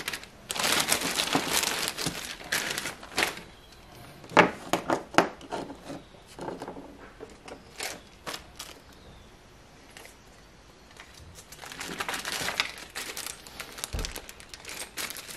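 Packaging crinkling in irregular bursts as small methanol-injection kit parts are handled and unpacked, with a few sharp knocks between the bursts and one dull thump near the end.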